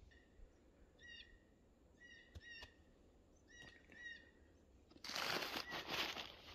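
Several short, high calls from a small animal or bird, singly and in pairs, with a few soft clicks between them. About five seconds in, a loud rustling starts, like something moving quickly through brush or leaves.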